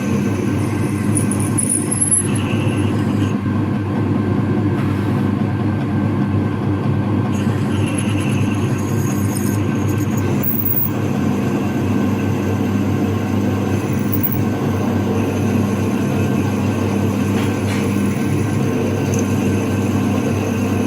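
Electric motor of a workshop machine tool running steadily: a continuous hum with several fixed tones that hold unchanged throughout.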